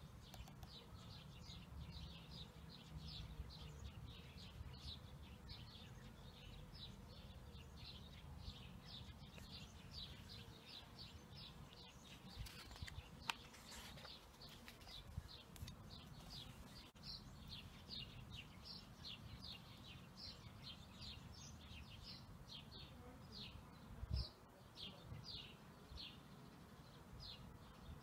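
A small bird chirps faintly and steadily, short high chirps about two or three a second, spacing out a little later on. About halfway through, a catalog page rustles as it is turned.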